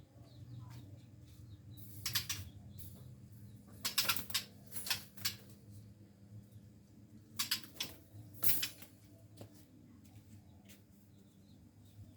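White-rumped shama beating its wings in several short flurries as it flies about a flight cage.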